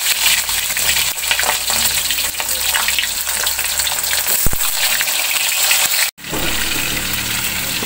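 Food sizzling and crackling as it fries in a little oil in a wok. The sound drops out for a moment about six seconds in.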